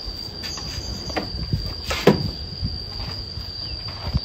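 Insects keeping up a steady high-pitched whine, with scattered faint clicks and one sharper click about two seconds in.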